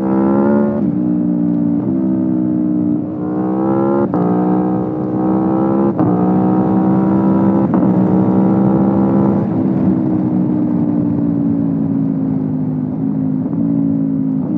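Aprilia Tuono V4 Factory's V4 engine through an Akrapovic exhaust, accelerating hard with quick upshifts that drop the revs in steps about a second apart. It pulls up again a few times, then the throttle comes off and the engine note falls slowly as the bike decelerates.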